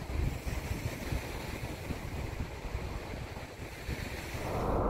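Small lake waves washing onto a sandy beach, with wind gusting over the microphone.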